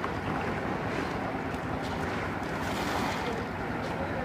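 Steady low mechanical rumble under a constant wash of noise, with a few faint clicks.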